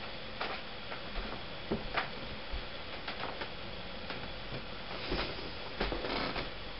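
Faint, irregularly spaced small clicks and taps from hands handling a stereo microscope and the fiber on its stage, about half a dozen over a steady low hiss.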